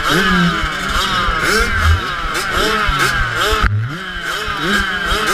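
Several motocross bike engines revving at the start line, throttles blipped over and over so the pitch keeps rising and falling in overlapping waves. About three and a half seconds in, one engine drops off sharply and then sweeps back up. The bikes are held behind the start elastic, waiting for it to drop.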